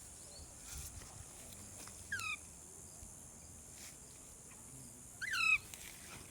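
Parrot giving two short calls, each falling in pitch, the second one louder.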